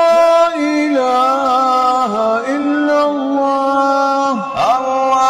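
A man chanting an Islamic chant in Arabic, holding long notes with ornamented turns. The melody steps down in pitch about one and two seconds in, and slides through a quick turn about four and a half seconds in.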